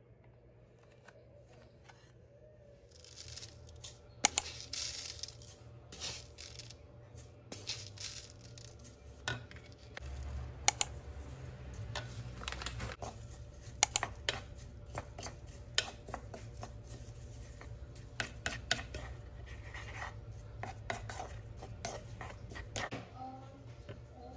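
Hand food prep in a wooden bowl: a wooden spoon scraping and tapping among dry rolled oats and chia seeds, with scattered sharp clicks and rustling as ingredients are added. Near silence for about the first three seconds before it starts.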